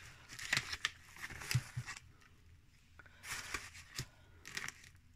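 Faint crinkling and rustling of a soup-mix packet and plastic bags being handled, in irregular bursts with a couple of sharp clicks.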